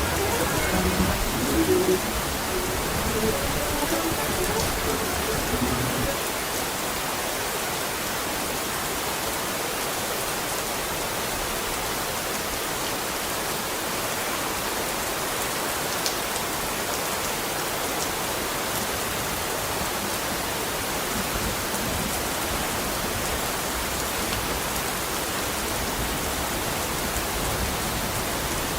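Steady rain falling, an even hiss with no change.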